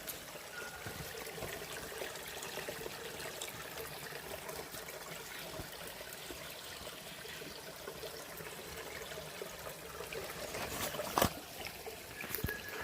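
Small forest stream trickling steadily, with one sharp knock about eleven seconds in.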